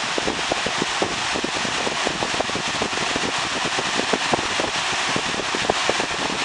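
Galaxy 4733 box fan, fitted with a more steeply pitched blade from another fan, running on high speed: a loud, steady rush of air with quick irregular buffeting, the air blast hitting the microphone.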